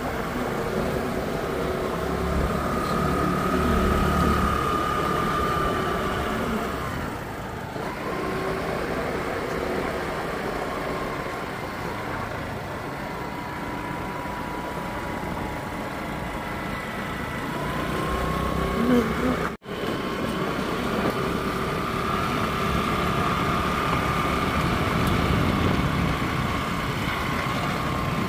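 Motor vehicle running steadily, a continuous engine and road rumble, with a brief dropout about two-thirds of the way in.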